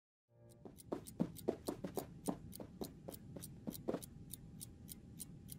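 Clock ticking steadily, about three to four ticks a second, in a quiet room; the ticks are louder for the first few seconds, then softer.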